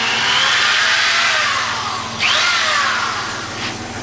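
Power drill running against the wrought iron sign post, scouring its surface to rough it up and strip the old finish so the new paint will stick; its whine rises and falls as the load changes, easing off near the end.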